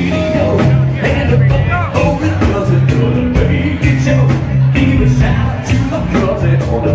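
Live rock band playing a song with a steady beat, bass notes and guitar under it.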